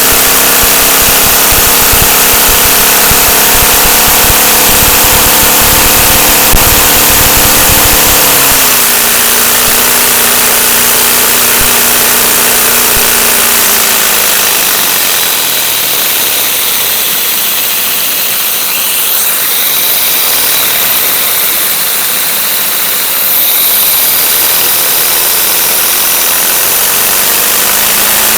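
LEGO boxer (flat) engine model running fast on vacuum: a loud, steady whir over a hiss of rushing air. Its pitch drops about eight seconds in and again near the middle, then starts climbing at the very end.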